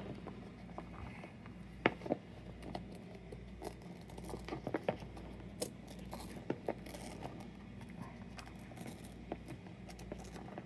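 Hands fiddling with a new USB cable and its packaging, working a fastening loose: scattered small clicks and crinkly rustles, with a few sharper ticks, over a steady low electrical hum.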